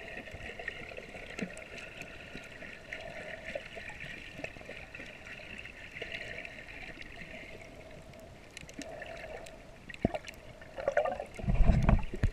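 Muffled underwater wash of moving water in shallow surf, heard with the microphone under the surface, with scattered small clicks. Near the end a loud low rumble of water surging against the microphone.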